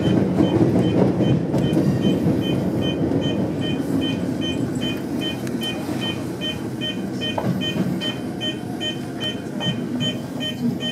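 Tokyo Metro 05 series train running through a tunnel, its low rumble easing off as it slows into the station platform. A rapid high beeping, about three short pips a second, keeps on throughout.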